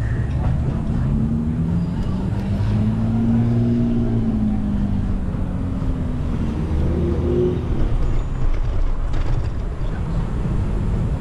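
Street traffic: a motor vehicle's engine passing, its pitch rising and falling, over a steady low rumble of wind and road noise on the microphone.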